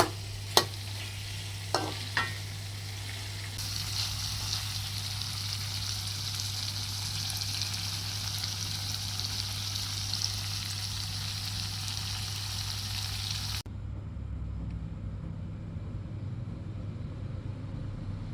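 Chicken in chili paste sizzling in a hot pan, with a few knocks of a utensil against the pan in the first couple of seconds. The sizzle turns louder about three and a half seconds in, then cuts off abruptly near the end, giving way to a low steady rumble.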